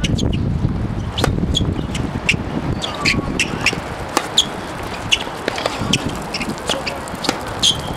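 Tennis ball struck by rackets and bouncing on a hard court during a rally: a string of sharp pops at irregular intervals. A low rumble underneath fades about halfway through.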